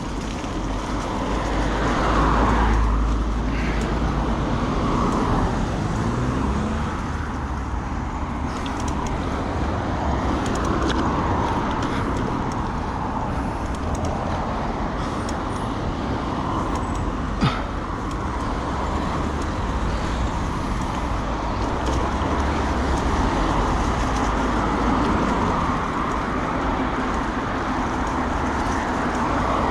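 Steady road and traffic noise with wind rumbling on the microphone, and a single sharp click about seventeen seconds in.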